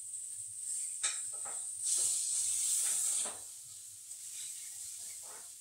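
Steak sizzling in a frying pan: a steady high hiss that swells louder for about a second and a half partway through, then eases off. A few faint taps sound over it.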